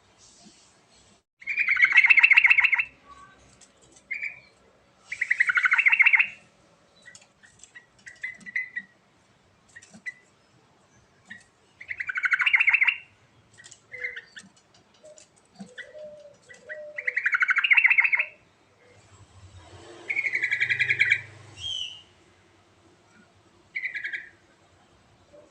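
Trucuk (yellow-vented bulbul) singing: five loud, quick, bubbling phrases of about a second and a half each, repeated every few seconds, with short softer notes in between.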